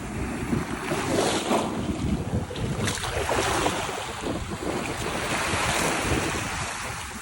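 Ocean surf: waves breaking and washing up the beach, swelling and easing, with wind buffeting the microphone.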